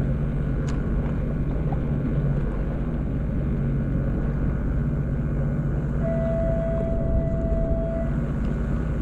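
A steady low mechanical hum. About two-thirds of the way through, a clear single tone sounds for about two seconds and then stops.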